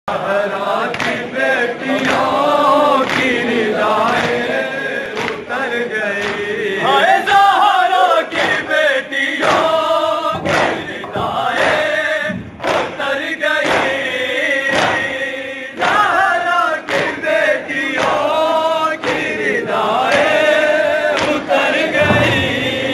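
A group of men chanting an Urdu noha (mourning lament) together, with the sharp slaps of open hands beating on chests (matam) keeping a steady beat under the singing.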